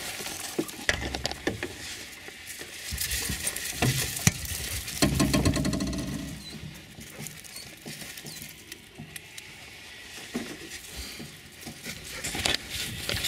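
Close rustling and scraping with scattered clicks and knocks, from a metal dog crate in a vehicle's cargo area being handled and a jacket brushing the microphone.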